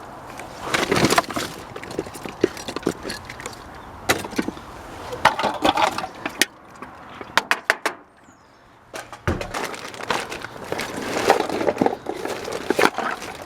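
Scrap and debris being rummaged through in a dumpster: irregular knocks, clatters and rustling. There is a brief lull about eight seconds in, broken by a dull thud, then the clattering resumes.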